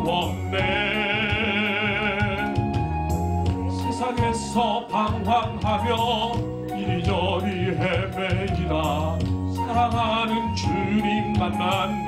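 A man singing a Korean gospel praise song into a handheld microphone over instrumental accompaniment, with vibrato on long held notes.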